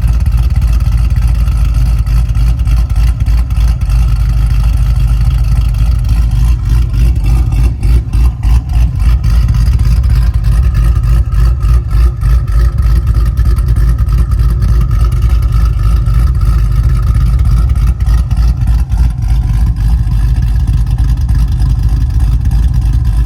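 Cammed 6.2-litre LS3 V8 of a Chevrolet SS with a Livernois stage 2C camshaft, running loud with a choppy lope and being revved. The revs hang before falling back.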